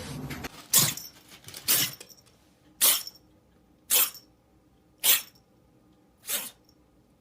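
A cat giving a series of short, sharp, breathy bursts like sneezes or coughs, six of them about a second apart.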